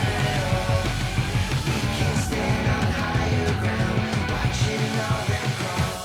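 Loud rock music with distorted guitars and a driving beat, fading out at the very end.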